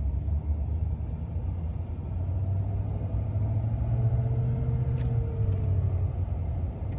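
Pickup truck in four-wheel-drive low range driving up a dirt hill, heard inside the cab: a steady low engine and drivetrain rumble. A faint whine rises in the middle, and a few light ticks come about five seconds in.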